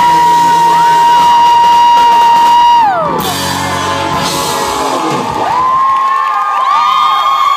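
Live rock band playing, with a long high held note that drops away about three seconds in, and whoops from the crowd.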